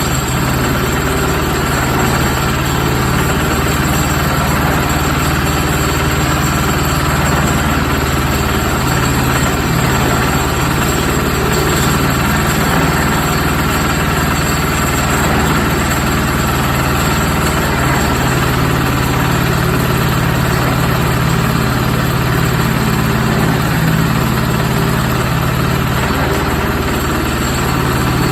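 Concrete mixer's engine running steadily at an even idle, with no changes in speed.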